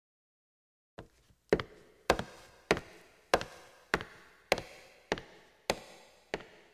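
A steady series of sharp knocks, evenly spaced a little under two per second, each ringing briefly, starting after about a second of silence.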